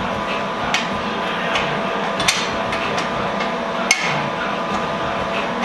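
Steel suspension bracket and frame tubing being handled and fitted together, giving a handful of sharp metal clicks and knocks, the loudest about two and four seconds in, over a steady shop hum.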